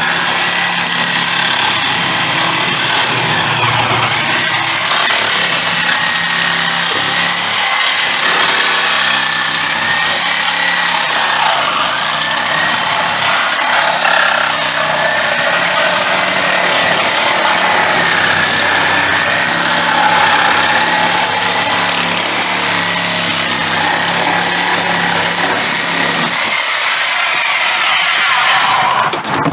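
A power tool running without a break, with a high whine that dips and recovers several times over a dense hiss.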